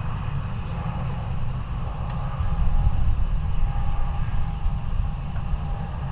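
Jet engines of a departing Airbus A321 airliner, a steady low rumble with a faint whine, growing louder about two and a half seconds in.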